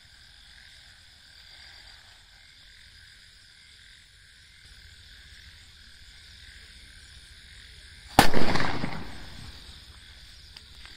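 A chidi bomb firecracker goes off about eight seconds in with a single loud bang that trails off over about a second. Frogs call steadily in the background.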